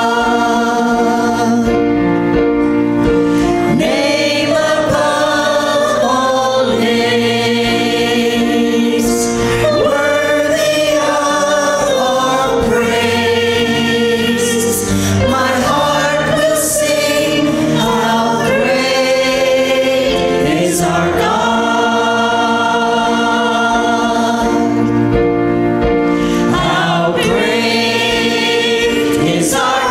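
Church choir singing a Christian worship song, voices holding long chords over a steady instrumental accompaniment.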